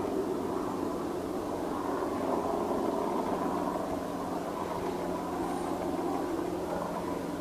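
Steady low background rumble with a faint constant hum, like distant engine noise; no call from the red deer hind.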